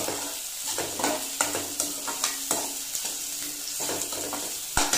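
Crushed small onions, green chilli and curry leaves sizzling in hot groundnut oil in a steel kadai. A slotted steel spatula stirs and scrapes against the pan in repeated strokes, about two a second, with a sharp knock near the end.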